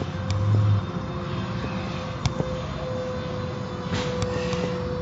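Car wash machinery running: a steady whine over a rushing noise, with a brief low hum in the first second and a few sharp clicks.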